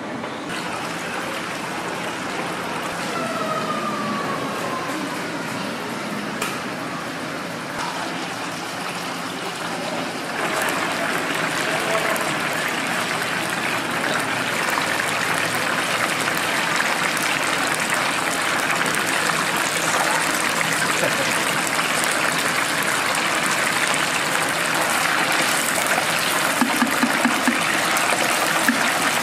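Open-air street ambience for about ten seconds. Then an abrupt change to the steady sizzle and bubbling of battered chicken pieces deep-frying in a large stainless-steel fryer of hot oil, with a run of soft rapid clicks near the end.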